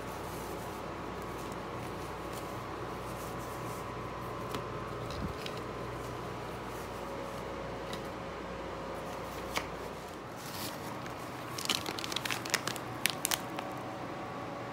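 Soft cloth rustling, then the plastic bag of a packaged shower curtain crinkling in a quick run of sharp crackles near the end, over a steady background hum.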